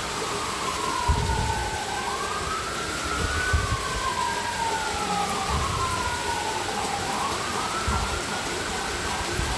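A siren wailing, its pitch rising and falling in slow, overlapping sweeps, over the steady hiss of heavy rain. A few low thumps break through, the loudest about a second in and again a few seconds later.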